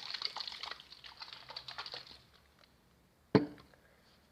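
Rapid, light fingernail tapping on an object for about two seconds, a dense run of small clicks, then a single sharp knock about three seconds in, the loudest sound.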